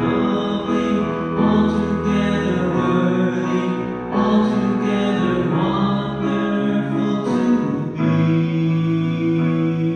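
A hymn sung with keyboard accompaniment, the music heard during Communion at Mass. About eight seconds in, the sound settles into steadier held chords, and the keyboard comes to the fore.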